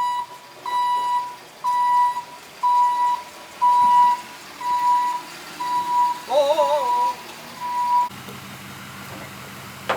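Vehicle back-up alarm beeping, a single pitch repeating about once a second, stopping about eight seconds in.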